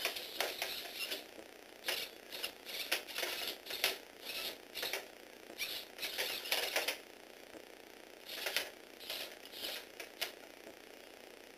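Lego Technic robot dog, driven by a Tomy Aero Spider motor, walking on a hard tabletop: spurts of small motor and gear whirring with plastic legs clicking and tapping, each lasting up to a second. They stop and start repeatedly, with a longer pause about seven seconds in and a stop near the end.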